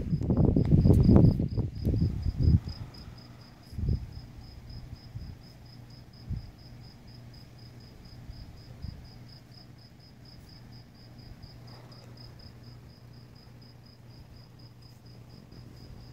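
A cricket chirping steadily, about four high chirps a second. A loud, low, irregular rumble fills the first couple of seconds and dies away, with a couple of fainter low thuds after it.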